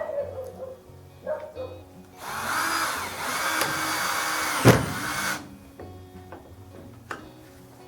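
A power tool runs for about three seconds, with a sharp knock near the end of its run. Lighter knocks come before and after it, over background music.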